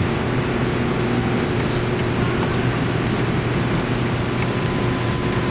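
Steady arcade din: a constant wash of noise from game machines, with a low steady hum underneath.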